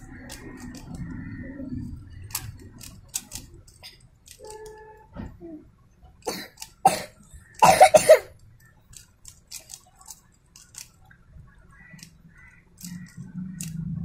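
Plastic Rubik's cube layers clicking as they are turned by hand, in scattered irregular clicks. About eight seconds in, a person coughs loudly, the loudest sound here.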